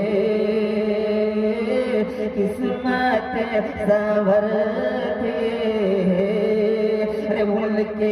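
Male voice chanting a naat with long, drawn-out held notes, amplified through a public address system.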